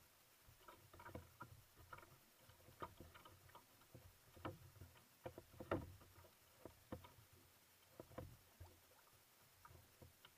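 Faint water sounds of a kayak being paddled: irregular small splashes and drips from the paddle blade and water slapping against the hull, with one louder splash a little before six seconds in.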